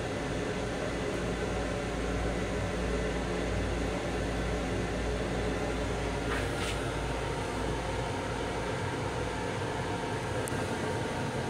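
Steady hum and rumble inside the restroom of a Long Island Rail Road M7 electric railcar: the car's ventilation and running noise, its low rumble easing about eight seconds in.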